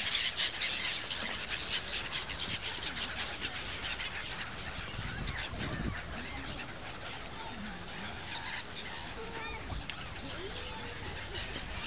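A flock of gulls calling, many short harsh cries overlapping, busiest in the first few seconds and thinning out later.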